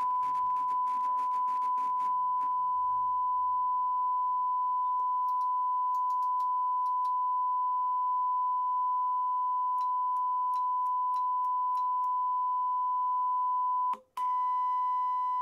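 Steady 1 kHz sine test tone through a Sony TA-F333ESX integrated amplifier. For the first two and a half seconds, crackling and rumbling come from the bass tone control as it is turned: a scratchy, dirty potentiometer. About 14 seconds in, the tone cuts out briefly with a click as the speaker selector switch is turned, then comes back with added overtones, distortion put down to degraded relay contacts.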